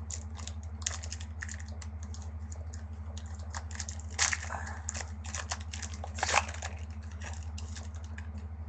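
Foil trading-card pack being opened and its wrapper crinkled while the cards are handled, an irregular run of crackles with two louder crinkles about four and six seconds in. A steady low hum runs beneath.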